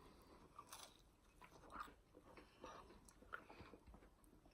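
Faint chewing: soft, irregular mouth clicks and smacks of a person eating fast food.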